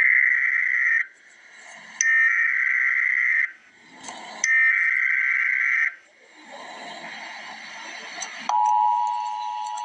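Emergency Alert System SAME header: three bursts of buzzy digital data tones, each about a second and a half long with a pause of about a second between them. About eight and a half seconds in, the steady two-tone EAS attention signal starts.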